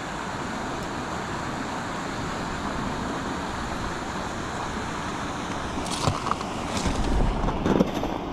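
Steady rushing of flowing river water, with a few sharp clicks about six seconds in and low wind buffeting on the microphone near the end.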